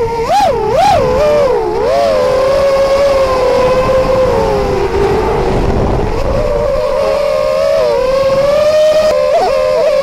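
Quadcopter's RMRC Blue Series 2600 kv brushless motors and propellers whining, heard from the onboard camera. The pitch swings up and down with throttle in the first two seconds, holds steady through the middle, and wobbles quickly again near the end.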